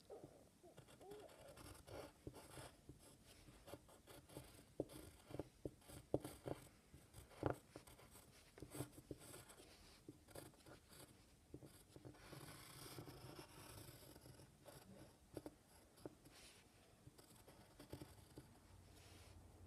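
Faint pencil drawing on brown kraft paper: short scratchy strokes and small taps of the pencil lead against the paper, at an uneven pace, with a longer run of continuous scratching a little past the middle.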